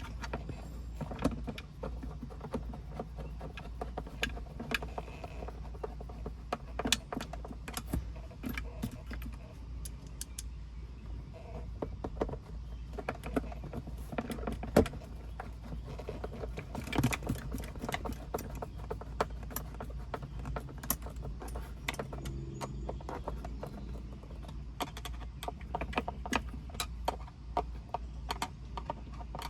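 Scattered clicks, taps and knocks of plastic interior trim and console-lid parts being handled and fitted back into a car's center console, over a faint steady low rumble.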